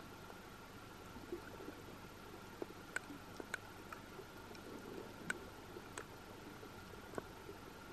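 Underwater ambience: faint sharp clicks and crackles at irregular intervals over a low steady hiss and a faint steady whine.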